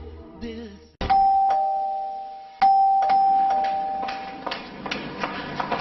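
Two-tone door chime rung twice, each time a higher ding followed by a lower dong that rings on and dies away slowly. A run of light, sharp taps follows near the end.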